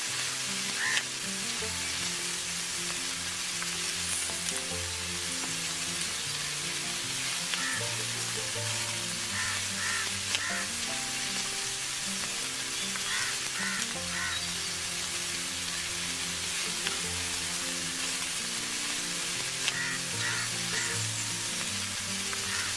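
Fish-roe batter fritters deep-frying in a wok of hot oil, a steady sizzle throughout, with a ladle stirring in the oil near the end. Soft background music plays underneath.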